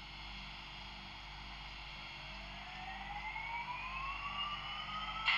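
Model electric locomotive giving a smooth electric drive whine that climbs steadily in pitch from about two seconds in, as the drive spins up to pull away. A short sharp clank comes at the very end.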